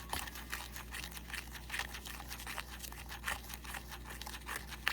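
Bath bomb powder mixture being stirred in a container: a run of short gritty scrapes, a few a second.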